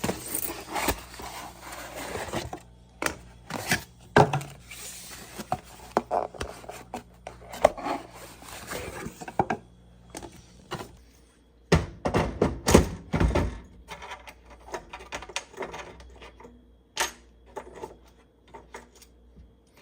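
Hands unpacking and handling new sealed lead-acid batteries: packaging and foam rustling, with scattered clicks and knocks. A few heavier thunks come a little past the middle.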